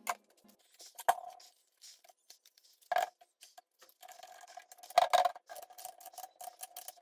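Faint workshop handling: scattered clicks, knocks and scrapes, the loudest about one, three and five seconds in. From about four seconds in come metal clicks of a lathe chuck being tightened on a wood-and-resin bowl, over a faint steady whine.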